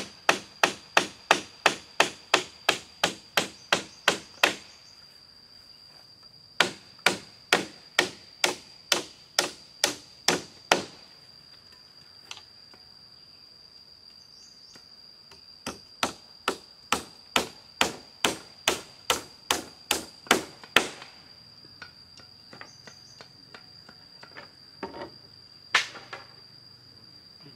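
Hammer blows on a bamboo ladder frame, in quick runs of about two to three strokes a second with pauses between the runs, the last few blows scattered. An insect drones at a steady high pitch throughout.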